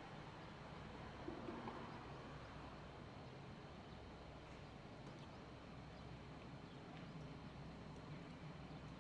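Faint outdoor background noise with a steady low hum, a few soft ticks and a brief slightly louder sound a little over a second in.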